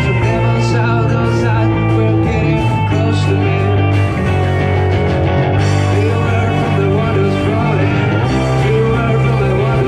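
Live rock band playing a song: electric guitar and bass over drums, with a voice singing.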